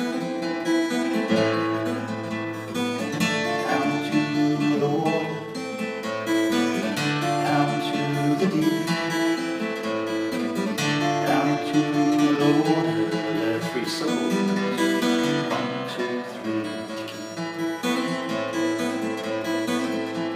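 Solo acoustic guitar strumming and picking chords in an instrumental passage, the strings ringing on between strokes.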